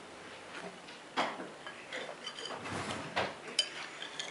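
Spoons and dishes clinking and knocking now and then during a meal, with a few sharper clicks.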